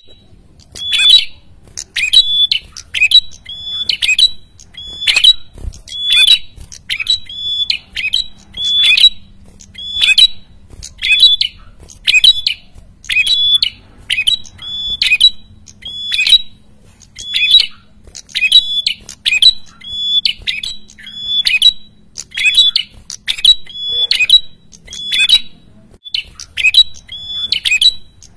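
A caged prenjak kepala merah (red-headed prenjak) calling loudly and incessantly: short, harsh chattering notes repeated about once a second. This is the noisy, vigorous calling that is used as a lure to draw rival birds.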